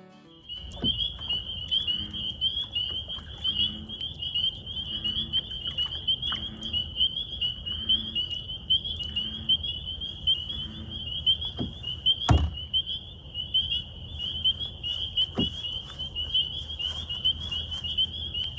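A steady chorus of frogs calling in rapid, overlapping high chirps, with low handling and water noise beneath. About twelve seconds in there is one sharp knock, and a fainter one a few seconds later.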